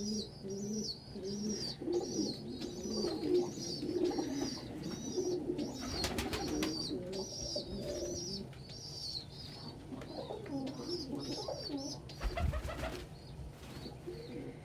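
Domestic pigeons cooing, over a steady run of short high bird chirps about twice a second. Two brief rustling noises, about six seconds in and again near twelve and a half seconds.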